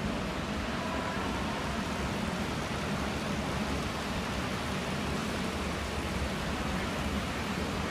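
Steady rushing noise with no distinct events: the ambience of an indoor velodrome during a track cycling race.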